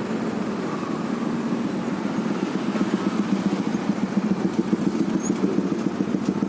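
A vehicle engine running at idle: a steady low rumble that takes on a regular pulsing beat about halfway through.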